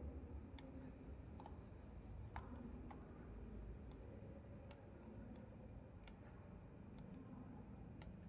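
Computer mouse clicking: single sharp clicks, about one a second, over a faint low hum of room tone.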